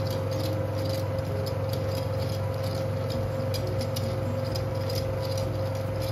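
Elmo ST-1200HD Super 8 sound projector running: a steady hum of motor and mechanism with a constant mid-pitched tone, and faint light ticking over it.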